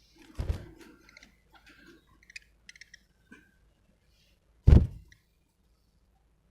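Two heavy thumps about four seconds apart, the second the louder. Between them come a few faint, short, high budgie chirps and clicks.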